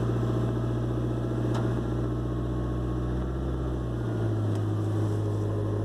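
Ford Transit 2.2 diesel engine running steadily, heard inside the cab, with a faint whistle from the turbocharger that has just been rebuilt with a new compressor wheel and shaft bushings; the owner takes the whistle for imbalance in the turbo. The low engine note shifts about four seconds in.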